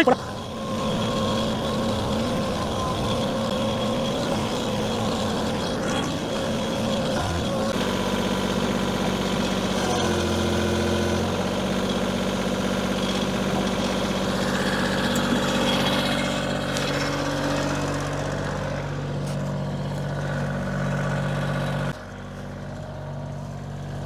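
Compact tractor's diesel engine running under changing throttle as it carries a log past and on toward a running sawmill engine, its note shifting several times. The level drops suddenly near the end as the engine is throttled back.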